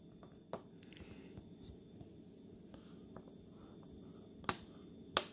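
Quiet room hum with three short sharp clicks, one about half a second in and two near the end: turquoise stones being handled and knocked against a hard surface.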